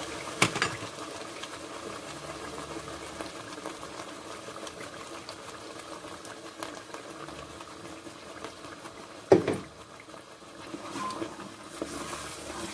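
Tomato puree and onions sizzling steadily in hot oil in a pot. There are two sharp knocks, about half a second in and about nine seconds in, and a wooden spoon starts stirring the stew near the end.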